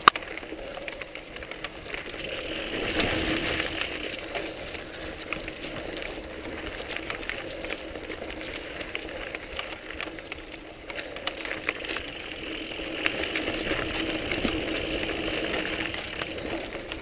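Mountain bike riding down a dirt singletrack covered in dry leaves: tyre noise over leaves and dirt, with the bike rattling and clicking over bumps. It grows louder about three seconds in and again near the end.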